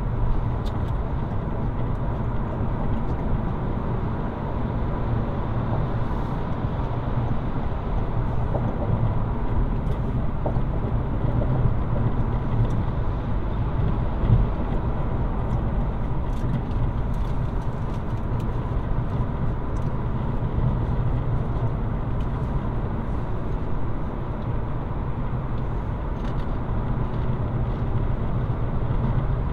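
Steady low rumble of a car on the move in rain, heard inside the cabin through a dashcam's built-in microphone, with faint ticks scattered through it.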